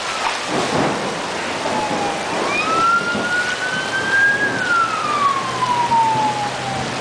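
Heavy monsoon rain pouring down in gusting wind, with a siren wailing over it: it climbs in pitch a couple of seconds in, holds, then slowly falls.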